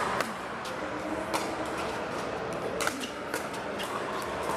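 Pickleball paddles striking a plastic pickleball during a doubles rally: a string of sharp pops at uneven intervals over a steady background din of hall noise.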